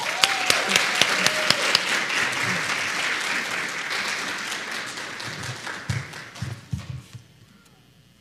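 Audience applauding, a dense crowd of claps that gradually fades and dies away about seven seconds in.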